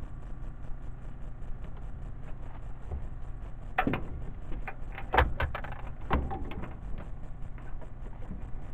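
Several sharp knocks and clatters of gear being handled in a fishing boat, bunched between about four and six and a half seconds in, over a steady low hum.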